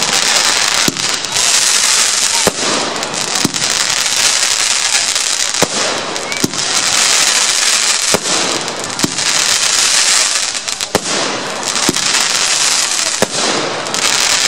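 Weco Coroner compound firework battery firing its shots in quick succession. Sharp bangs come roughly once a second over a continuous hiss of crackling from the crackling-star rises.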